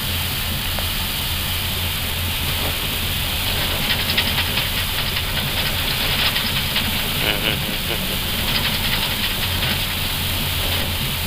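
Steady cockpit hum and airflow hiss of an Airbus A320 on the ground, with faint crackling from about four seconds in to about eight seconds in.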